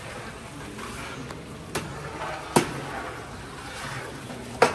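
Three sharp clanks, about 1.8, 2.6 and 4.6 seconds in, from long metal ladles and a skimmer knocking against a large steel cooking pot as a stew is stirred, over a steady kitchen background noise.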